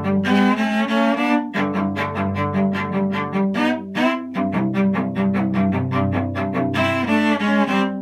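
Solo cello played with the bow: fast repeated short strokes alternating with longer high notes and sliding glides that imitate a train whistle, including a quick upward slide about four seconds in.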